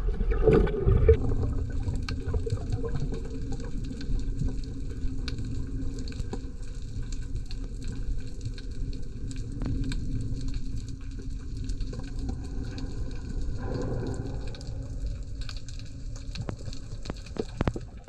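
Underwater ambience picked up by a submerged camera: a steady muffled rush of water with scattered sharp clicks, and louder gushes of water about half a second in and again around 14 seconds.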